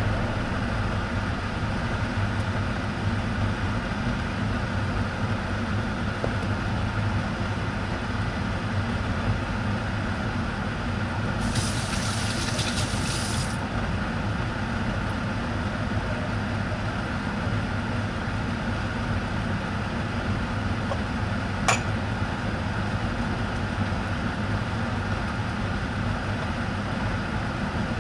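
Egg-soaked bread frying in a pan: a steady sizzle over a low hum. About twelve seconds in there is a brief, louder burst of high hiss, and a single sharp click comes later.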